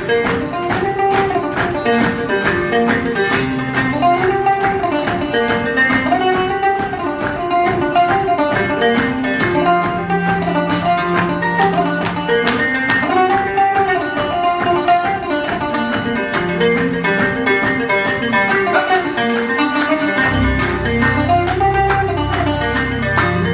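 Instrumental passage of live acoustic folk music: picked acoustic guitar playing a melody that repeats in phrases. A low sustained bass comes in near the end.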